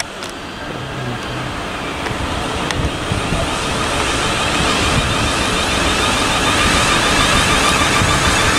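South Western Railway Class 450 Desiro electric multiple unit running through the station, its running noise growing steadily louder as it approaches and passes close by.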